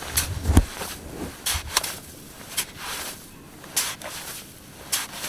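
A metal clam rake digging into wet sand and shell: about half a dozen short, irregular gritty scrapes and crunches, one with a dull thump about half a second in.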